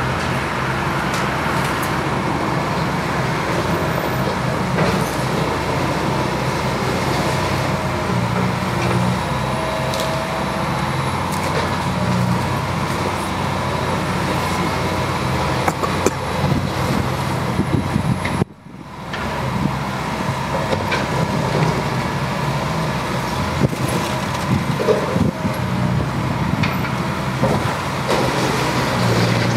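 Liebherr 906 excavator's diesel engine running under varying load, with a steady whine and scattered knocks, cutting out abruptly for a moment about two thirds of the way through.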